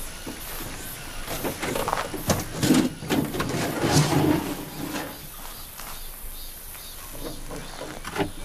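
A metal food-delivery box being handled: its door sliding open, knocks and scrapes, and bowls slid out from its shelves. The loudest part, around the middle, also holds a few short low voice-like sounds.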